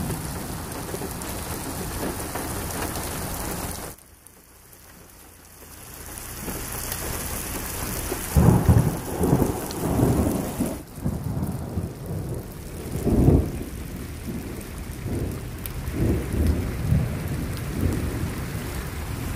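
Rain and runoff water streaming across a paved road, a steady rushing hiss that drops away suddenly about four seconds in and then builds back. Low rumbling bursts come several times in the second half.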